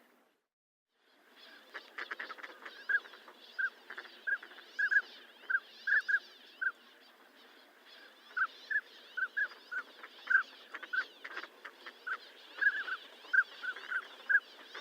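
Northern pintail drakes giving short whistled calls, dozens of brief notes, some in quick pairs, over a steady background of other calling. The calls begin after about a second of silence.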